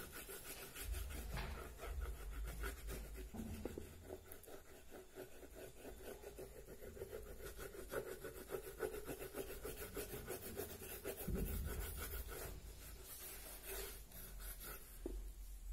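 White oil pastel rubbed on paper in many short, repeated strokes: a faint scratchy rubbing.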